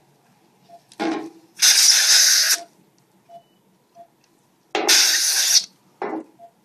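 Two hissing blasts of compressed air from a dental air-water syringe, each about a second long with shorter puffs around them, blowing a dog's teeth dry so the sealant will stick.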